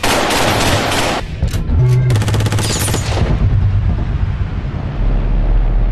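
Automatic rifle fire cut together with music and sound effects. There is a loud blast right at the start, then a rapid burst of shots around two seconds in over a low bass tone. Near the end a deep low rumble swells.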